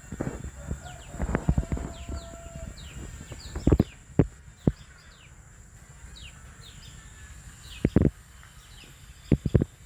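Small birds chirping over and over in quick short falling notes, over a steady high hiss. Several loud thumps or knocks come at irregular moments and are the loudest sounds, some as quick doubles.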